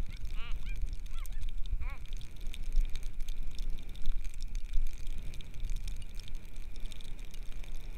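Wind rumbling on the microphone, with a few short rising-and-falling pitched calls in the first two seconds and a faint steady high tone.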